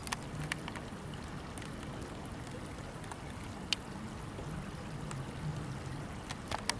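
Steady rush of flowing river water, with scattered small sharp clicks that bunch together near the end.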